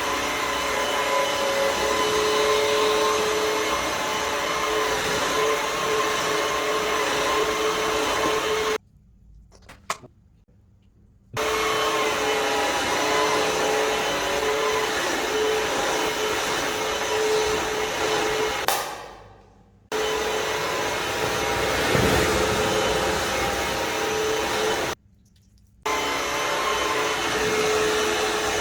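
Vmai V8 Pro cordless wet-dry vacuum cleaner running: a steady motor noise with a constant whine. It cuts out abruptly twice, and about two-thirds of the way in its pitch falls as it winds down, then it starts again.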